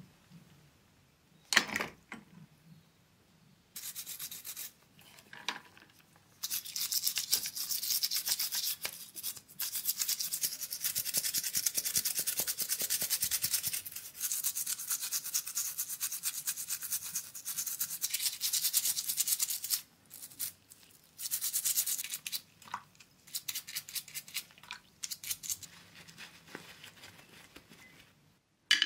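Toothbrush scrubbing small diecast toy-truck parts in a tub of liquid, with fast, even bristle strokes. The scrubbing runs unbroken for about sixteen seconds, then turns into shorter bursts. A sharp click comes about a second and a half in, and another right at the end.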